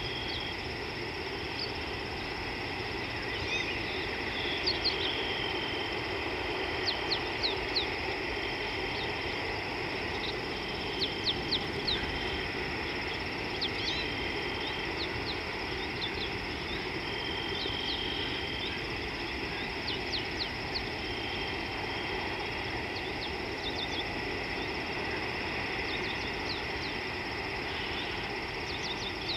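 Wild birds giving frequent short, rising chirps and brief whistled notes over a steady insect drone and background hiss.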